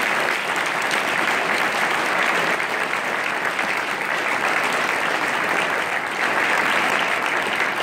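An audience applauding: a steady round of clapping from a roomful of people.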